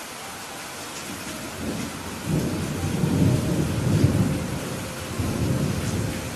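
Steady rain with a rolling thunder rumble that builds about a second and a half in, peaks in the middle, swells once more and dies away near the end.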